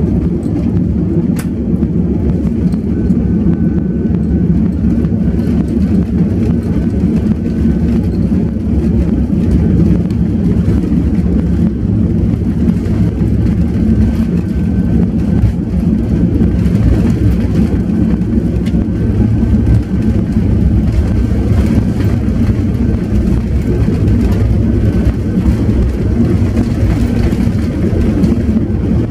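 Cabin noise of an Airbus A330 taxiing, heard from a window seat: a steady low rumble from the Rolls-Royce Trent 700 engines at taxi power, with no rise in thrust.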